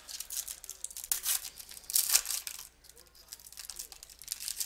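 Foil wrapper of a trading-card pack being torn and crinkled in the hands. The crackling comes in bursts and is loudest about two seconds in, then settles to lighter handling.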